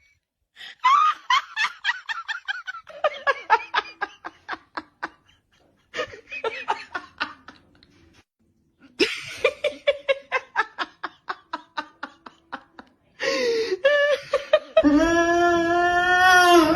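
Three bouts of hearty laughter, each a quick run of 'ha-ha' pulses falling in pitch. Near the end comes a long, held vocal note that rises at the close.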